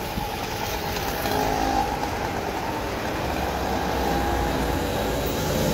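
Busy street traffic, with a car driving past close by, its engine running over the general din of traffic. The noise grows slightly louder towards the end.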